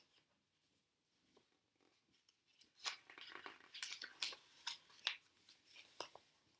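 Pages of a large picture book being turned by hand: a run of crisp paper rustles and crackles that starts about two seconds in.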